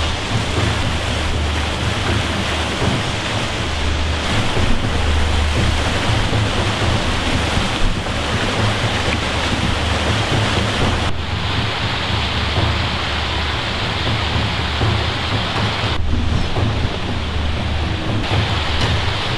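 Rainstorm ambience: a steady, dense hiss of rain over a low rumble. The texture shifts abruptly twice, about eleven and sixteen seconds in.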